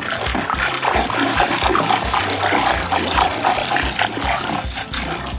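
Muddy water splashing and sloshing in a plastic tub as a plastic toy animal is swished and rubbed clean in it.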